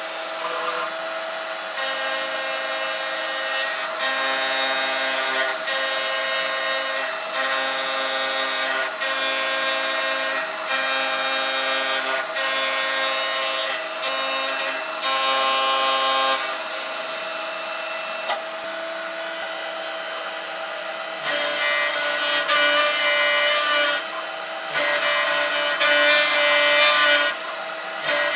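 Vertical milling machine cutting a metal block with a small end mill: a steady spindle whine under a harsh cutting noise that rises and falls about once a second as the tool makes its passes. The cut grows louder in the last several seconds.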